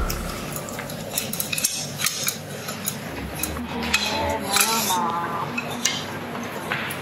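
Wooden clothes hangers clacking against one another and scraping along a clothes rail as garments are pushed aside one by one, in many irregular sharp clicks.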